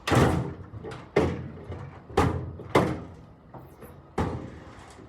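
A series of five loud bangs, roughly a second apart, each dying away quickly.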